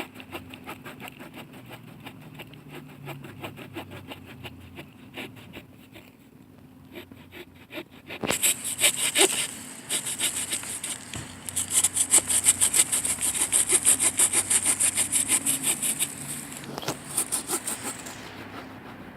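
The folding wood saw of a Victorinox Rangerwood 55 pocket knife cutting through a log by hand: quick, rhythmic back-and-forth strokes, soft at first, then much louder and harsher from about eight seconds in, easing off near the end.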